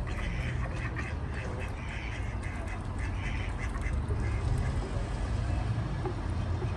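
Mallard ducks quacking in a quick run of short calls that stops about four seconds in, over a steady low rumble.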